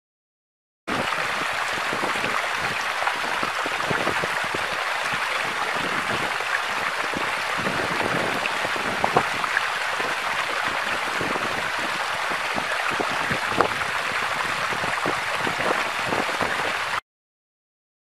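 Running water from a small stream: a steady rush dotted with small splashes and drips, starting suddenly about a second in and cutting off near the end.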